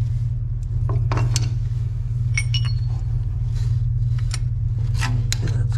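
Metal hand tool chipping and scraping at old hardened Bondo filler around a boat's stern tube: scattered clinks and scrapes, a couple with a brief metallic ring, over a steady low hum.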